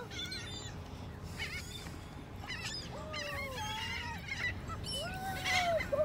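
A flock of gulls calling over and around the feeding spot: many short, overlapping squawks and wavering cries throughout.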